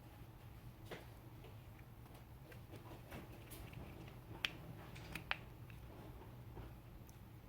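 A few faint, sharp plastic clicks and taps from an Audi key fob being handled, its release tabs pressed and its battery tray pulled. The clicks are scattered, with the sharpest about four and a half and five seconds in.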